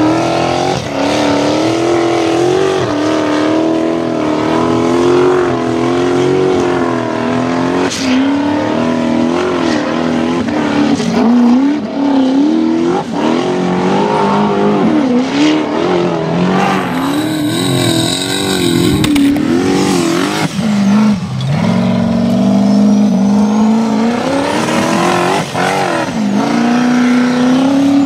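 Turbocharged LS1 V8 of a Formula Offroad buggy revving hard on a steep sand hill climb, its pitch rising and falling every second or so as the throttle is worked and the tyres dig and spin.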